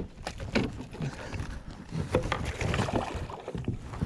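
Irregular knocks, bumps and rubbing of hands handling a freshly landed redfish and fishing gear, with sharp clicks scattered throughout.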